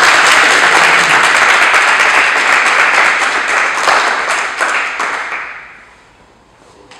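A group of people applauding, dense and loud, dying away about five to six seconds in.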